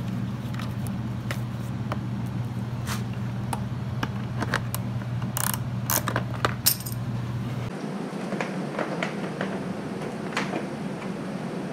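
Scattered light clicks and clinks of small hardware being handled, the loudest a few sharp clinks between about five and seven seconds in, over a steady low hum that cuts off suddenly near eight seconds.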